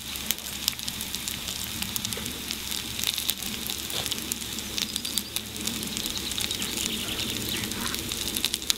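Salami and onions frying in hot oil in a cast-iron pan over a small wood fire: a steady, crackling sizzle. A few sharper clicks come near the end.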